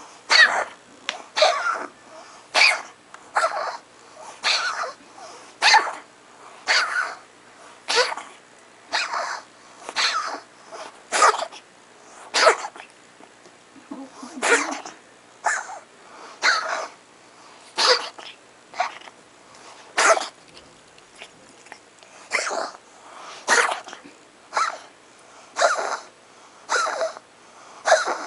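A cat coughing in a long, unbroken fit: short, sharp, wheezy coughs coming about once a second, some in quick pairs.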